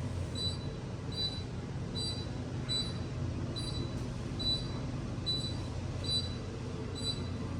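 KONE passenger elevator car travelling, a steady low rumble, with short high-pitched beeps repeating irregularly about every half second to a second.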